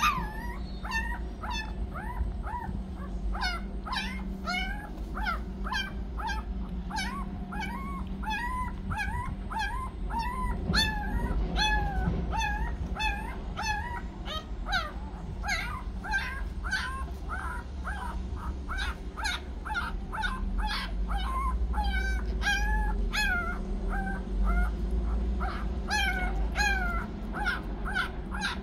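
A litter of newborn puppies, eyes still closed, squeaking and whimpering in a continuous stream of short, high calls, several a second, as they jostle each other for a teat while nursing.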